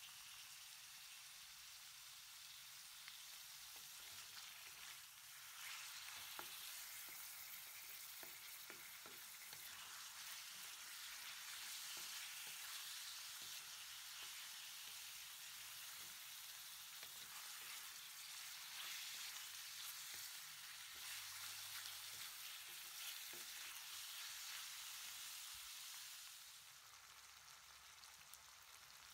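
Pork belly pieces and onion sizzling in oil in a wok, stirred with a spatula that scrapes and clicks against the pan. The sizzle grows louder about six seconds in and drops back near the end.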